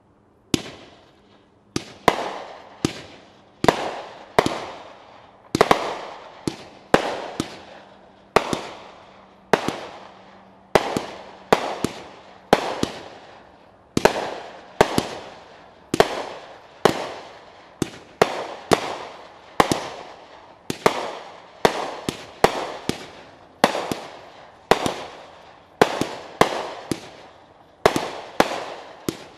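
Gold & Blue 100-shot barrage firework cake firing a steady run of sharp bangs, about one and a half a second, starting about half a second in. Each bang trails off in an echo.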